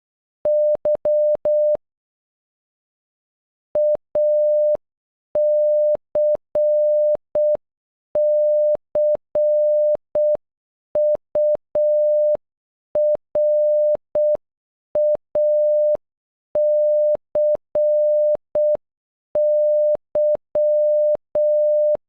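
Morse code sent as a single steady beep tone in short and long beeps. A brief -.-- (Y) comes first, then after a pause the word ACCURACY, .- -.-. -.-. ..- .-. .- -.-. -.--, at half speed with clear gaps between letters.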